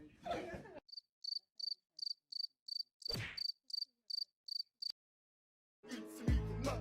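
Cricket chirping: a run of short, high chirps, evenly spaced at about three a second for some four seconds, over otherwise dead silence, with one brief noisy burst partway through. A piece of music with a beat starts near the end.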